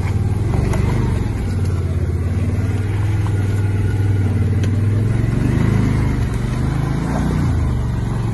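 Can-Am Defender side-by-side engine running under load as it churns through deep mud with its tyres spinning. Its pitch rises and falls with throttle blips about five to seven seconds in.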